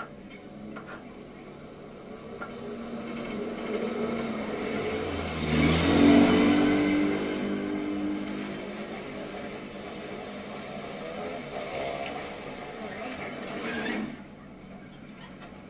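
A motor vehicle engine passing on the road outside, growing louder to a peak about six seconds in, then fading away, and dropping off suddenly near the end.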